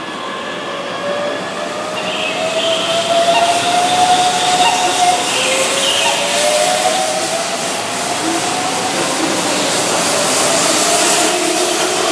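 Keihan 9000-series VVVF electric train pulling away: its inverter whine rises in pitch, drops back about halfway through and climbs again as it gathers speed, with the rushing noise of the cars rolling by growing louder.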